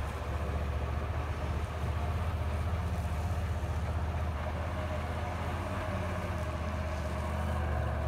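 Monster truck's engine running under load as it drives over the dirt track and up a dirt mound: a steady deep drone that gets louder about two seconds in.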